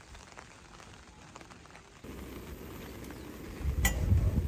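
Steady rain for about two seconds; then a low rushing noise, with a sharp click a little before the end followed by a louder low rush, as a portable gas cartridge stove is lit.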